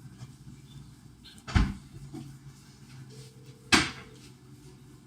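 Two sharp knocks, one about a second and a half in and one a little past three and a half seconds, over a faint steady low hum.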